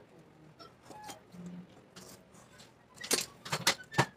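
Mixing utensil clicking and scraping against a mixing bowl as a flour mixture is stirred. It is faint and sparse at first, then a quick run of clicks near the end.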